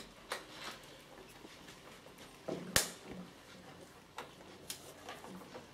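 Quiet room with scattered small clicks and rustles and one sharp knock about three seconds in.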